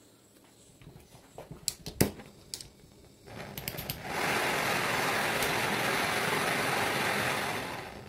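A few sharp clicks, then a small butane gas torch lights and hisses steadily for about four seconds as a flame is used to pre-tin solder wires. The hiss drops away just at the end.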